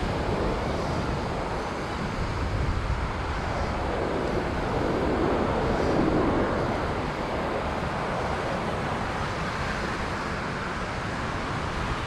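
Ocean surf washing onto the beach, swelling and easing as waves break, over a steady low rumble of wind buffeting the microphone.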